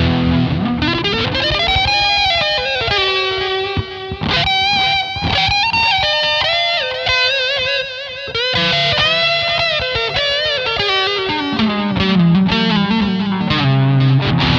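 Electric guitar played through a Zoom G2.1u multi-effects pedal and a Boss GE-7 graphic equalizer, which is switched on. It plays a single-note lead with a slide up at the start, string bends and vibrato on the held notes, and drops to a lower phrase near the end.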